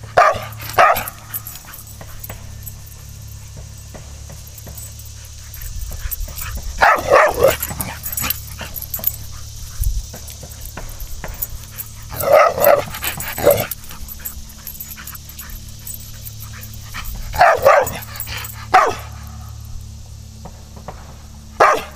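Entlebucher Mountain Dog barking in short runs of two or three barks, a run about every five seconds.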